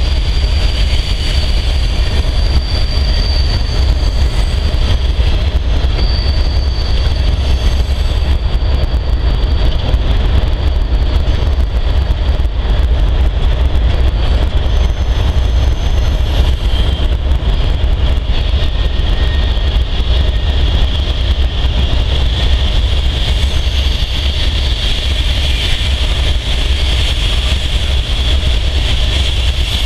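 Freight cars of a mixed freight train rolling past on curved track: a steady heavy rumble with faint high wheel squeal, stronger near the end, over the deep drone of idling diesel locomotives close by.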